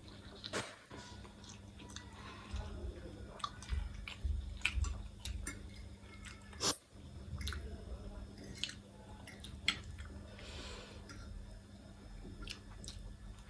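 Close-up eating sounds of noodles: wet chewing, slurping and mouth smacks in irregular short clicks, over a steady low hum.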